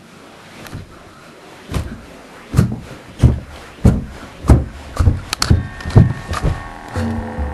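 Heavy banging and clanking, about ten slams at roughly one and a half a second, each booming and echoing: the percussive noise that opens a spoken-word recording. Near the end a steady, droning pitched tone comes in under the hits.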